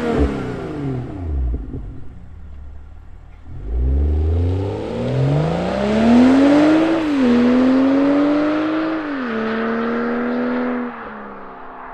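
BMW B58 3.0-litre turbocharged straight-six exhaust under hard acceleration. A rev blip dies away, then after a short lull the engine pulls up through the revs, drops twice at upshifts, and goes quiet as the throttle is lifted near the end.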